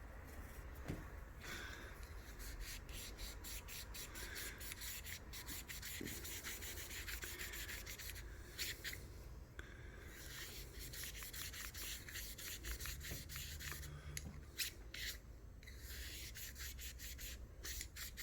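Cotton swab on a cleaning rod being worked back and forth through a Smith & Wesson M&P Shield .45 pistol barrel, making faint rubbing and scraping in quick repeated strokes with a couple of short pauses. The swab is scrubbing fouling and residue out of the bore.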